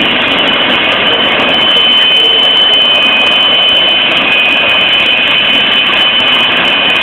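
Jet engine running steadily: a continuous high whine over a loud rushing roar.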